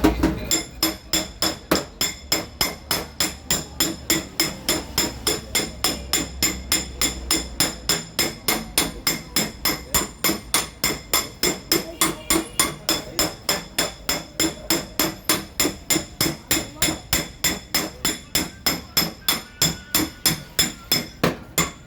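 Light hammer tapping on a car fender's sheet metal, very even at about three taps a second, each tap with a short metallic ring. This is the paintless dent repair way of working a dent out without repainting.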